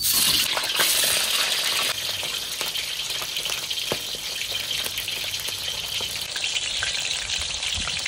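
Whole short mackerel (pla thu) deep-frying in hot oil in a wok: a dense sizzling that starts abruptly, is loudest for the first couple of seconds, then settles into a steady bubbling fry with small crackles.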